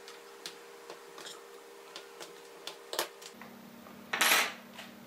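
Small clicks and taps of hands and tools working the LCD panel and aluminium frame of a MacBook Pro display assembly, with one brief, louder scraping sound about four seconds in.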